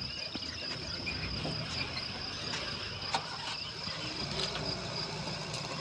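Steady, high-pitched insect shrilling, like crickets or cicadas in the grassland, with a few short chirps over it.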